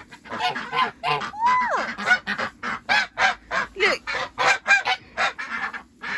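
Flock of geese and ducks calling inside a polytunnel: a rapid, unbroken run of honks and quacks, about three calls a second, with one longer call falling in pitch about a second and a half in.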